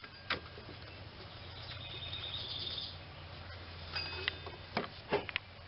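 Scattered light clicks and knocks of hands working a serpentine belt over the engine's pulleys, against a steady low hum. There is a brief high, rapidly pulsing chirp about two seconds in.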